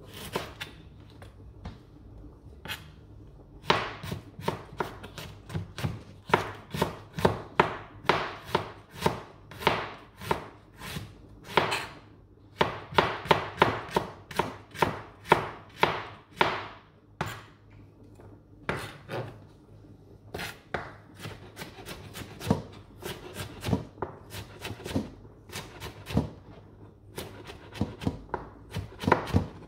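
Ceramic kitchen knife slicing and chopping ginger on a plastic cutting board: quick runs of sharp knocks as the blade strikes the board, several a second, broken by short pauses.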